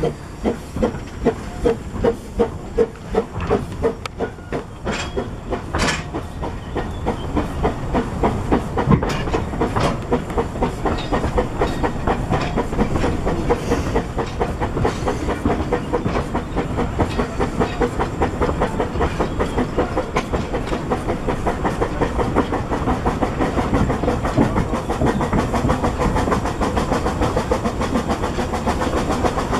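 Narrow-gauge steam locomotive No 7 Tom Rolt pulling away up a gradient, its exhaust beats at about two a second and quickening as it gathers speed. Carriage wheels click over the rail joints beneath, with the hiss of steam.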